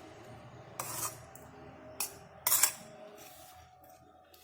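Short scraping and rubbing sounds in a mixing bowl as plain curd is added to pearl millet flour and worked in: three brief scrapes, about one, two and two and a half seconds in, the last the loudest.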